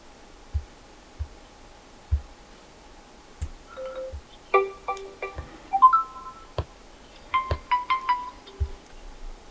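A Realme Narzo 50 ringtone playing: sparse low beats, then a melody of short chiming notes that comes in about four seconds in, in quick clusters.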